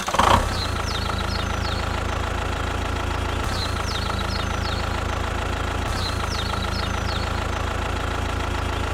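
An engine idles steadily with a low, even throb, after a brief louder burst right at the start. Birds chirp faintly in the background a few times.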